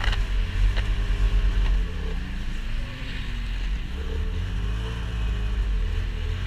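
A vehicle engine running, its pitch slowly rising and falling, under a heavy uneven rumble of wind on the microphone, with a few sharp clicks in the first couple of seconds.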